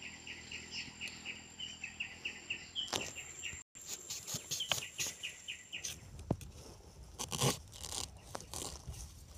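A bird calls a quick, even series of short high notes, about five a second, over a thin steady high whine. After a break, a small knife blade scrapes and stabs into dry soil and bamboo leaf litter at the foot of a bamboo clump, digging out a buried bamboo shoot, with scattered clicks, rustling and crunching.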